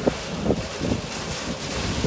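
Steady rush of storm wind and water heard from inside a moving car on a wet, partly flooded road, with irregular low thumps.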